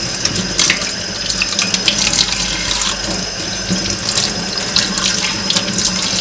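Kitchen tap running steadily into a stainless steel sink, the stream splashing irregularly over hands rinsing a squid under it.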